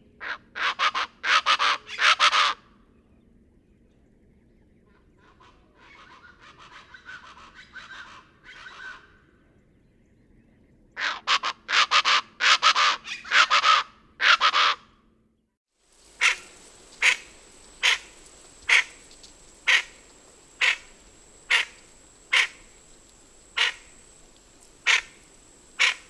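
Plain chachalacas giving loud, harsh, raucous calls in rapid bouts of clustered notes, with a fainter bout between them. After a short break, single harsh notes repeat about once a second over a steady high-pitched tone.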